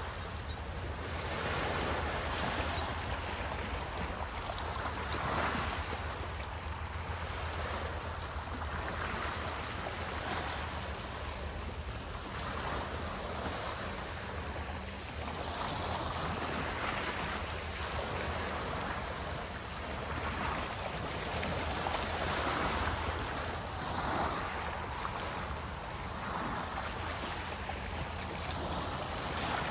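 Small waves washing onto a shore, the surf swelling and falling away every few seconds, over a steady low rumble.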